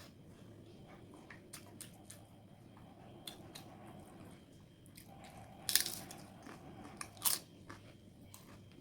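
Close-miked eating of pepper chicken: small wet chewing clicks throughout, with two louder crunchy bites, about six and seven seconds in.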